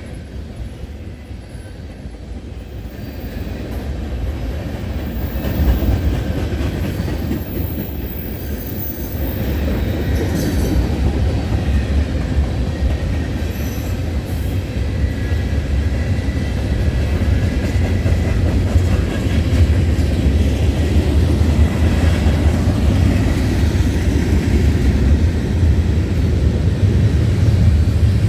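CN freight train M321's cars rolling past close by: a steady rumble of steel wheels on rail that grows louder, with a faint thin wheel squeal in the middle.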